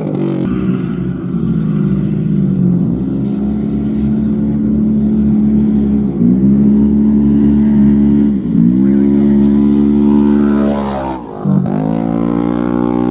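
Off-road race vehicle's engine running hard at high revs. Its pitch dips briefly about four times and climbs back up each time.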